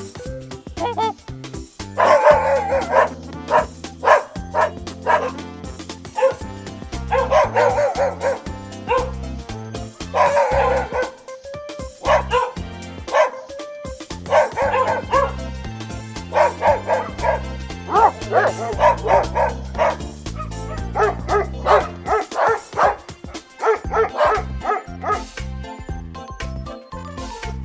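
Dog barking in repeated bouts of short barks, over background music.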